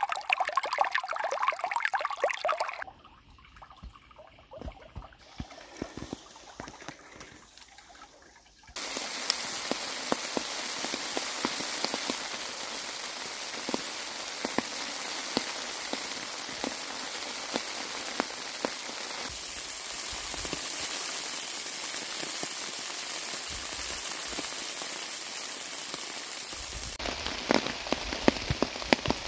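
A small stream trickling and splashing over rocks for the first few seconds, then after a quieter stretch, steady rain from about nine seconds in: a dense hiss with many separate drop ticks, near the end falling on a nylon tent fly.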